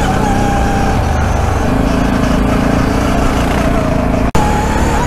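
ATV engine running as the quad is ridden along, with a rush of wind and trail noise; the engine note steps up about a second and a half in. The sound cuts out for an instant a little past four seconds.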